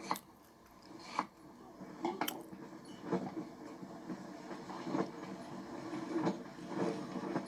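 A steady low hum with irregular clicks and knocks scattered through it, about one a second.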